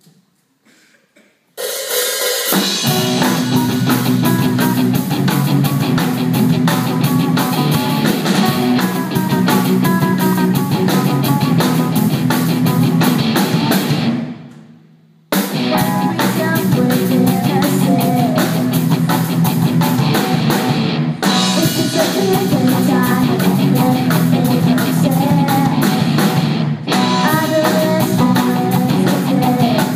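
Student rock band playing live: drum kit, guitars and bass, with singing. The music starts about two seconds in and breaks off for about a second halfway through before carrying on.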